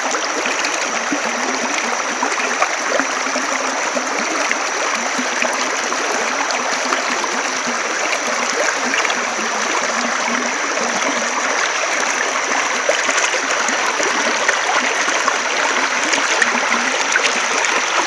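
Stream water flowing steadily, an even rushing sound with many small ticks of splashing water.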